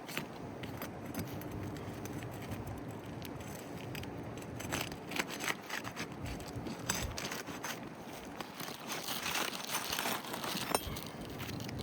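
Clicks and scrapes of a roofer's tool prying up asphalt shingles and working out their nails, irregular and scattered, with one sharper click near the end.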